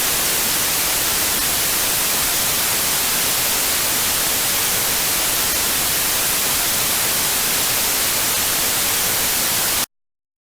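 Loud, steady static hiss of an off-air broadcast signal, cutting off suddenly near the end.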